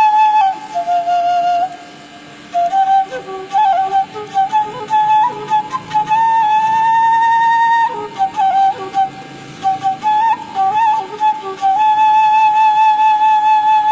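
Bamboo flute (seruling) playing a lilting, ornamented melody in short decorated phrases, with a brief breath pause about two seconds in. A long held note with vibrato, rising slightly, comes in the middle, and another long note near the end.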